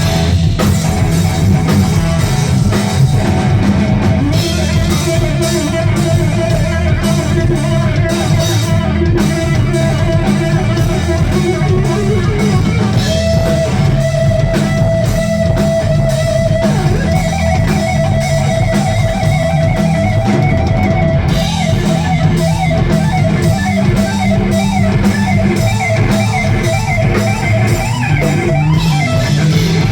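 Live heavy rock instrumental at full volume: electric guitar playing lead lines and held notes over a pounding drum kit, without a break.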